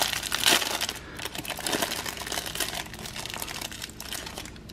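Clear plastic wrapper of a Hostess coffee cake crinkling as it is pulled open by hand, loudest in the first second and then softer rustling.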